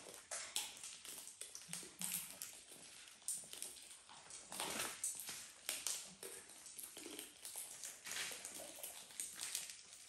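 Macaws and a cockatoo picking and cracking seeds from a metal tray of seed mix: a steady run of small, irregular clicks and crunches.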